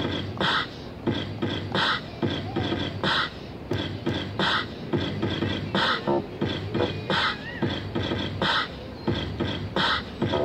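Electronic hip-hop drum beat played on a drum machine and sent out through small JBL portable speakers: a steady groove with a snare-like hit about every second and a quarter, lighter kick and hat hits between, and a few short synth tones.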